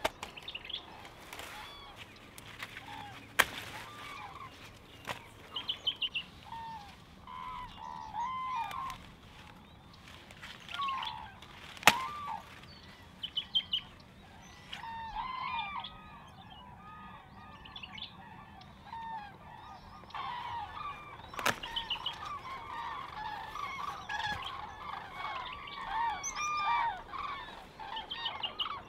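Birds calling outdoors, many short arching calls overlapping throughout, like a flock of fowl. A few sharp knocks stand out, the loudest about a third of the way in and again past the middle.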